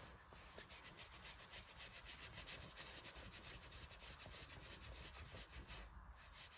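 Faint, quick, rhythmic rubbing of palms rolling a piece of soft paneer dough into a smooth ball, stopping about six seconds in.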